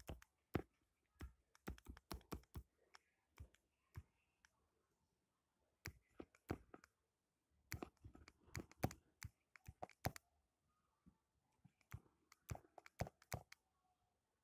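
Stylus tip tapping and clicking on a tablet's glass screen while writing by hand: clusters of faint, sharp clicks at an uneven pace.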